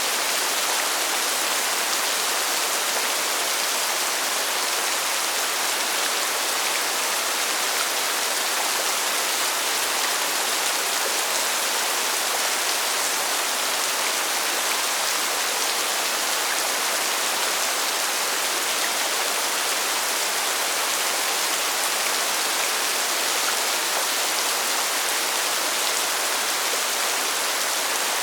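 Steady rainfall: an even, unbroken hiss, heavier in the highs than the lows.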